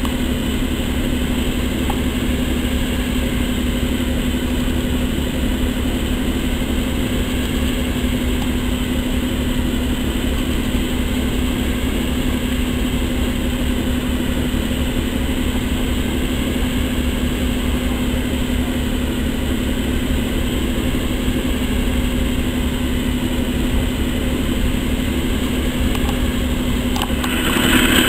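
Diesel locomotive engine idling with a steady, unchanging hum and low rumble.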